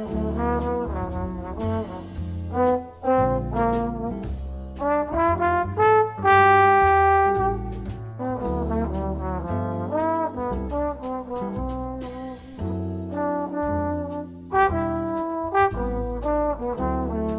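Instrumental background music: a melody of short notes over a bass line, with one long held note about six seconds in.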